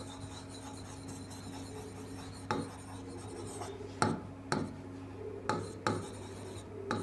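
Marker pen rubbing and squeaking on a whiteboard in a handful of short, irregular strokes as words are written, over a faint steady low hum.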